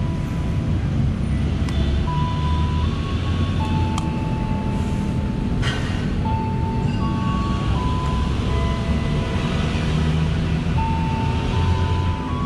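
Steady low rumble of a train at a railway station, with thin high tones that hold and step from pitch to pitch, and two sharp clicks about four and six seconds in.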